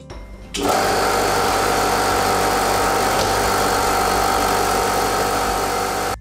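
Portable electric air compressor running in the open room, not yet moved under the floor: a loud, steady motor-and-pump noise with a steady whine in it, starting abruptly about half a second in.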